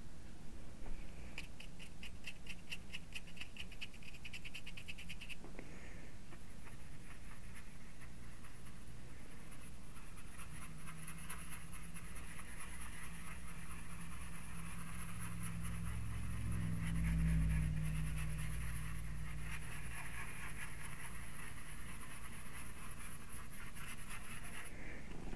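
A paintbrush scrubbing and dabbing acrylic paint onto hardboard. There is a run of quick, rapid strokes early on, then a steadier scratchy brushing for most of the rest.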